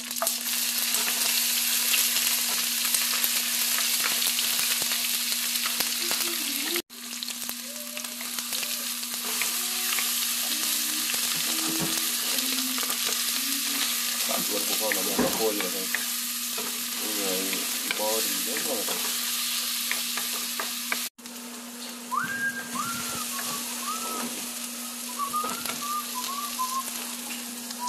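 Lemongrass, leaves and chopped aromatics sizzling in hot oil in a nonstick wok, stirred and scraped with a wooden spatula. It is a steady dense sizzle that breaks off for an instant twice, with a few short squeaks near the end.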